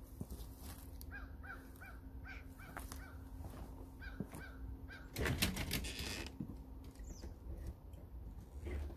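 A crow cawing in a quick run of about eight calls. About five seconds in comes a louder noisy rustle lasting about a second.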